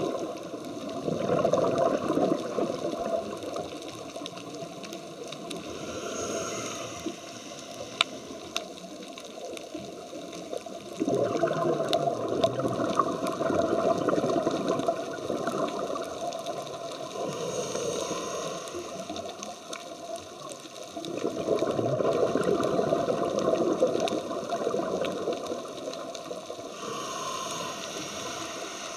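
Scuba regulator breathing heard underwater: three loud rushes of exhaled bubbles about ten seconds apart, with a softer, higher hiss between them.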